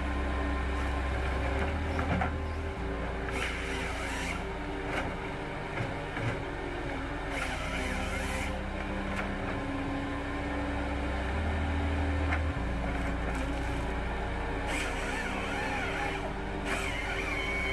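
Heavy machinery running steadily, with a few sharp knocks and several short rushing bursts.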